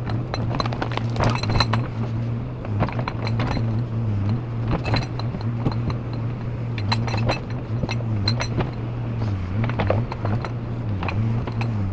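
JCB 4CX backhoe loader's diesel engine running steadily under hydraulic load, its pitch dipping briefly every few seconds as the boom works. Clusters of metallic clinks and knocks come from the backhoe arm and bucket.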